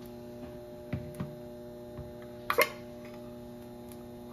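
Metal food cans being handled and opened: a few light clicks and knocks, then a sharp double click about two and a half seconds in, the pop of a pull-tab lid breaking its seal. A steady low hum underneath.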